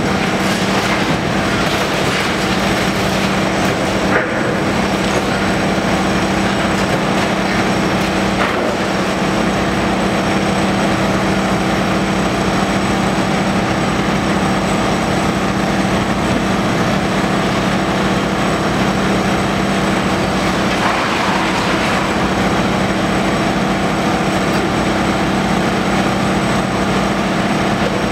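Tracked demolition excavator running steadily with a constant engine hum while its grab pulls apart a brick office block, with a couple of sharp knocks of breaking and falling debris.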